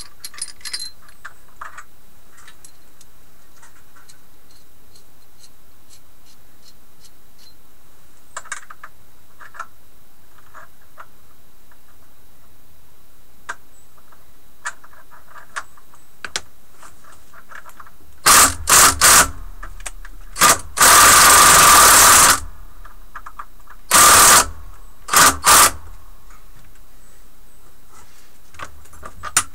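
Cordless drill with a socket driving a bolt to mount a bench vise, run in about seven short trigger bursts with a motor whine, the longest about a second and a half, in the second half. Before that, only faint scattered clicks.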